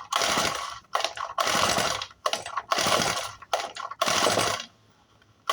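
Four-stroke grass cutter being pull-started with the choke on. About four hard pulls of the recoil starter, each a rasping whirr as the engine turns over. The engine never catches: it is hard-starting and won't fire.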